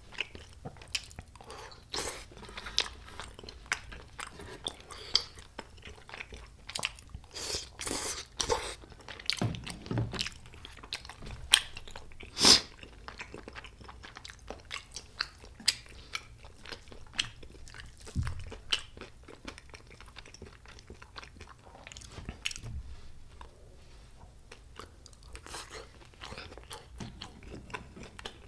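Close-miked eating of spicy tteokbokki: biting and chewing rice cakes, heard as many short, sharp, irregular mouth clicks and crunches, the loudest about twelve seconds in.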